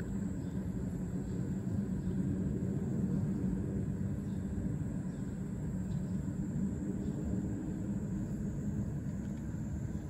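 Steady low outdoor rumble with no distinct events.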